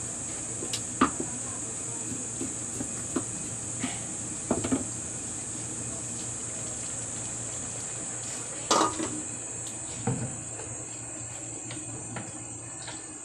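Metal lid of a large aluminium cooking pan clanking against the pan as it is handled and set back down. There are several sharp clinks, the loudest about nine seconds in, over a steady hiss.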